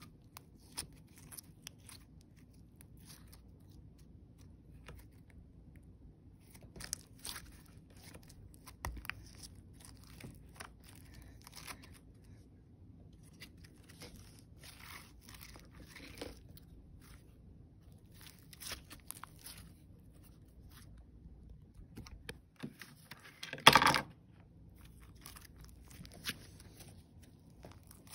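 Clear glitter slime being squeezed and worked in the hand, giving scattered sticky crackles and small pops, with one much louder burst about four seconds before the end.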